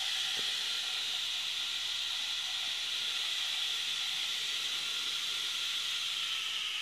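Small 1–4 V DC hobby motor running steadily with a plastic CD spinning on its shaft as an extra load. It gives a steady high whine with a hiss, like a jet.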